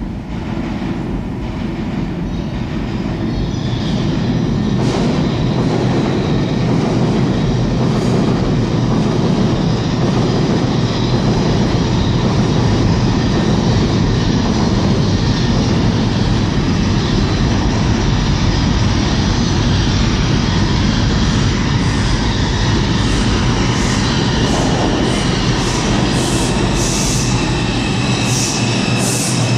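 New York City subway train approaching the station through the tunnel: a low rumble that grows over the first several seconds and then holds steady, with short high-pitched wheel squeals in the last several seconds as the train comes in.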